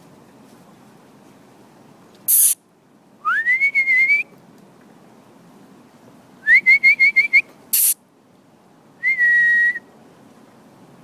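A person whistling to call two corgis back: a long rising whistle that warbles, then five quick rising whistles, then one short level whistle. Two short, sharp bursts of noise come before the first whistle and just after the quick ones.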